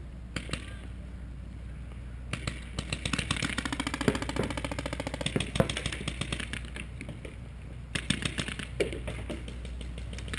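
Paintball markers firing fast strings of shots, a rapid run of pops starting about two seconds in and lasting several seconds, then another short flurry near the end.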